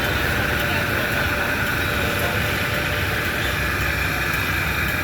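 Diesel engine of heavy road-construction machinery running steadily at a constant pitch.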